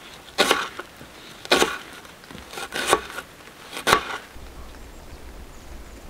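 A kitchen knife slicing onion on a white plastic cutting board: five separate cuts at uneven intervals, stopping about four seconds in.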